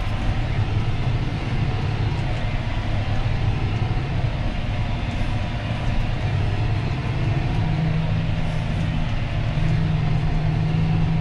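Tractor engine running steadily under ploughing load, heard from inside the cab. About seven seconds in, a slightly higher hum in the engine note grows stronger.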